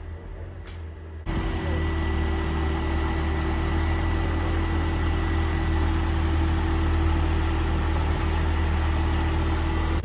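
Steady vehicle engine and cabin noise with a low hum, starting abruptly about a second in.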